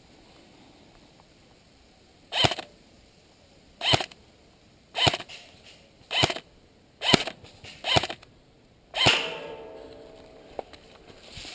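Airsoft rifle fired in single shots, seven sharp reports roughly a second apart. The last one trails off longer.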